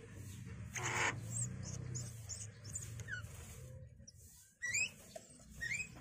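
Javan mynas at the nest box while a parent feeds its chicks: thin, very high chirps and two quick rising squeaks near the end, with a short rustle about a second in.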